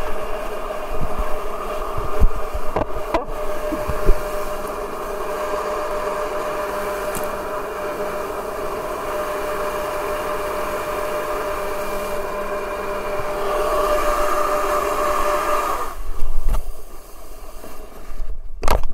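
Electric jet surfboard's jet drive running at speed over water rush: a steady whine made of several fixed tones, with a few bumps in the first seconds. About 16 seconds in the whine stops as the throttle comes off, and a few sharp knocks and scrapes follow as the board runs up onto the grassy bank.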